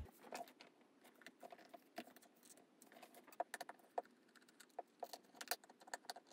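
Faint, scattered small clicks and scrapes of a screwdriver turning the battery-cover screw on the back of a plastic digital multimeter, as the meter is handled.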